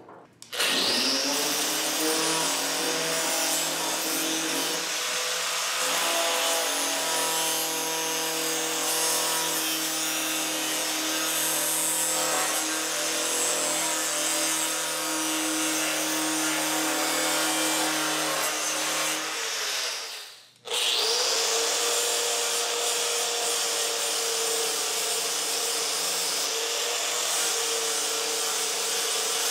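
Angle grinder spinning up and grinding down weld beads on a steel sheet-metal patch panel. It cuts out about twenty seconds in, then spins up and grinds again.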